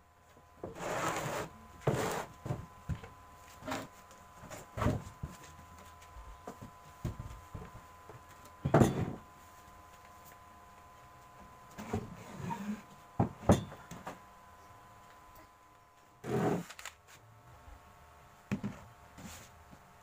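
Plywood panels being handled and set in place: irregular knocks and thuds of wood on wood, with a few longer scraping sounds.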